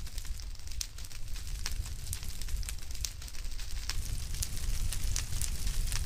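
Fire crackling: irregular sharp pops and snaps over a steady low rumble.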